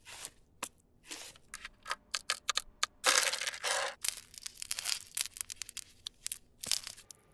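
Small objects being pressed and crushed, a string of sharp crackling clicks with a longer crunching burst about three seconds in that lasts about a second.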